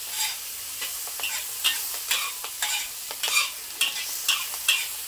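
Metal wok spatula scraping and tossing chives, tofu and dried shrimp in a hot wok over a steady sizzle, about two strokes a second. This is a fast, high-heat stir-fry of the chives.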